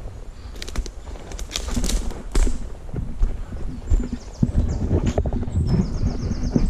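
Footsteps walking along a dry dirt path, an irregular run of steps with rustling and brushing against the undergrowth.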